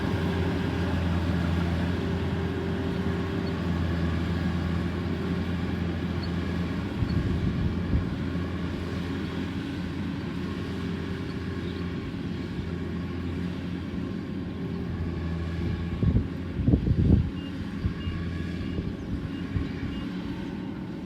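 Kubota rice harvester's engine running steadily under load with a constant hum. A few low rumbling thumps come about seven seconds in and again around sixteen to seventeen seconds.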